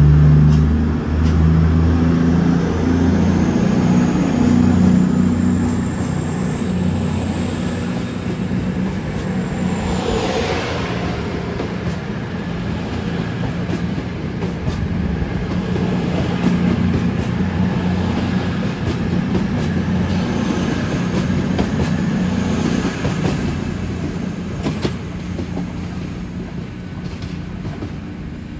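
CrossCountry Voyager diesel multiple unit pulling out of the station, its underfloor diesel engines working hard at first, with a high whine that rises over the first ten seconds. The engine sound then fades steadily as the train moves away.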